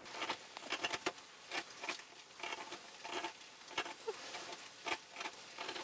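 A hand carving gouge scraping and cutting short strokes into a wooden board, a quick irregular series of small scrapes, about two or three a second.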